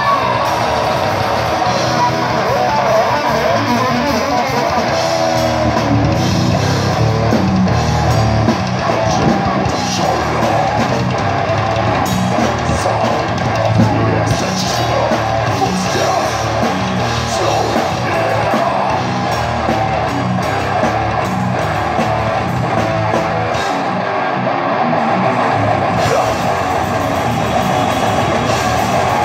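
Heavy metal band playing live: distorted electric guitar and a full drum kit, with a vocalist singing into the microphone. For about two seconds near the end the band thins out, the drums and low end dropping away before coming back in.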